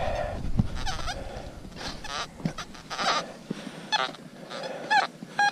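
XP Deus metal detector sounding off in Full Tones mode as its coil passes over a target: short warbling tones that shift in pitch, then a quick run of short beeps near the end.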